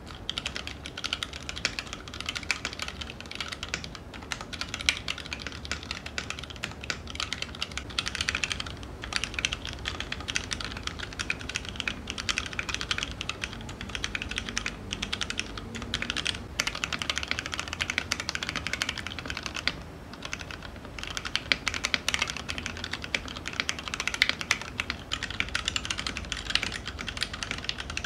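Continuous fast typing on a mechanical keyboard, a keystroke sound test for comparing keycaps and switches, with short pauses about 9, 16 and 20 seconds in.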